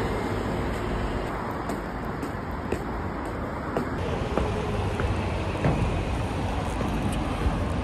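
Steady city road traffic noise, with a few faint knocks.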